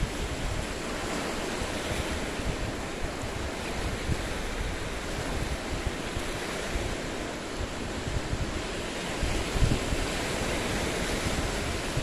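Small lake waves washing in and breaking among shoreline boulders in a continuous surf wash, with wind buffeting the microphone in a low, gusty rumble.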